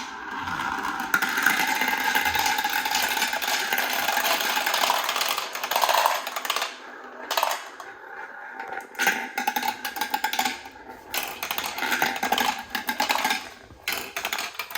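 Marbles rolling and clattering down a plastic VTech Marble Rush track, a dense rapid rattle of clicks for the first five seconds or so, then shorter bursts of clattering.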